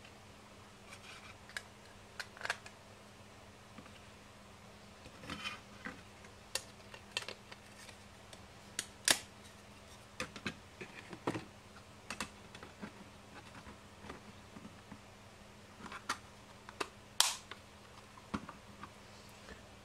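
Irregular clicks and taps of small parts being handled and pressed into a thin metal faceplate: a cigarette-lighter socket and a digital power meter being fitted into their cutouts. Two sharper clicks stand out, one about halfway through and one a couple of seconds before the end.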